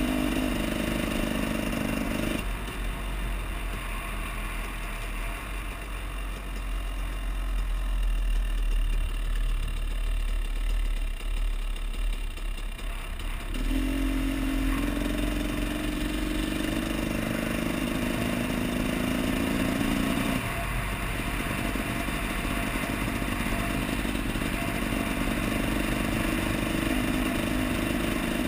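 2014 KTM 300 XC single-cylinder two-stroke dirt bike engine running on the road under way. Its steady note drops away for several seconds at a time and then returns, as the throttle is eased and opened again. The owner finds the engine's performance undesirable.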